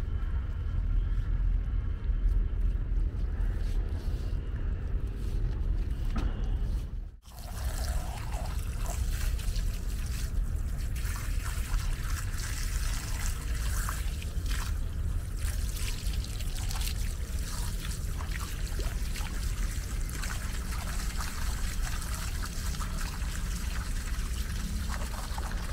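Water from a garden hose runs steadily and splashes onto bare feet and a concrete slab, rinsing off a mud pack. Before a brief dropout about seven seconds in, only a low rumble is heard.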